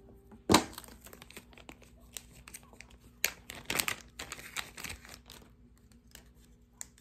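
Clear plastic zip bag crinkling and rustling as a SIM card carrier is handled and pulled out of it, with one sharp snap about half a second in.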